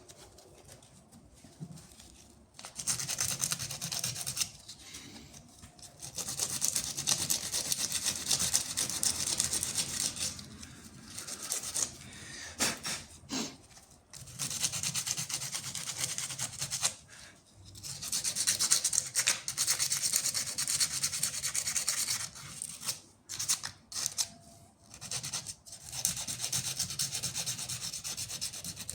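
Rubbing against a surface, in bouts of a few seconds with short pauses between.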